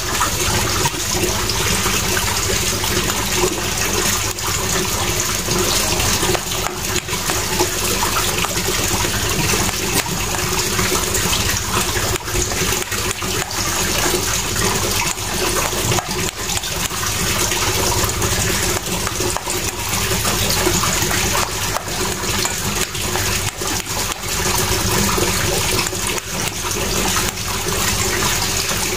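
A steady rushing noise like running water. Over it, many small clicks and scrapes come from a plastic spoon working stiff bait dough in a stainless steel bowl.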